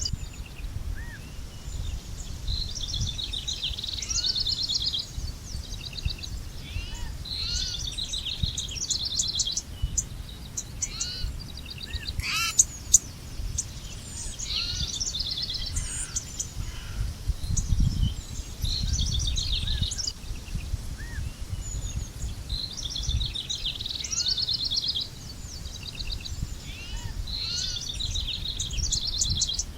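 Birds singing: one bird repeats a short trilled phrase every four to five seconds, with short rising chirps from other birds between, over a steady low rumble.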